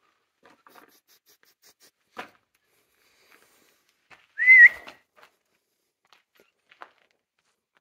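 A single short whistle, a clear note that wavers up and down in pitch, about four seconds in. Faint scattered scuffs and clicks lie around it.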